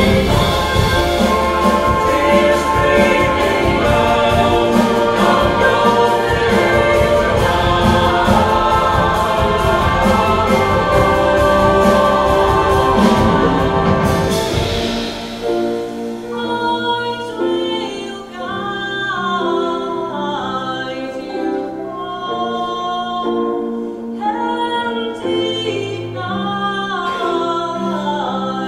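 Choir singing with live instrumental accompaniment. It is full and loud for about the first half, then about halfway through it thins to a quieter, sparser passage of voices.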